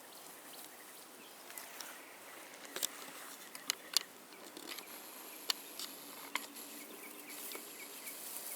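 A steady high insect trill, cricket-like, comes in about halfway through. Over it come a handful of sharp, separate clicks and knocks.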